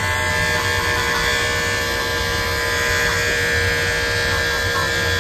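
Corded electric dog clippers running with a steady motor hum as they trim a poodle's curly coat around the ear.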